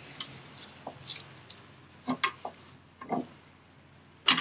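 Light metallic clicks and knocks as a clutch release arm and throw-out bearing are worked into a Toyota FJ40 bell housing. A handful of them are spread out, with the sharpest click near the end.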